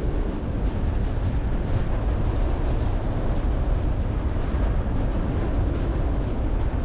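Airflow of paraglider flight buffeting an action-camera microphone: a steady wind rush, heaviest in the low end.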